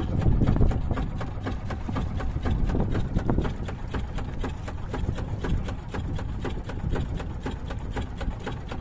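Small fishing boat's engine running under way, with a rapid, even knocking beat over a low rumble.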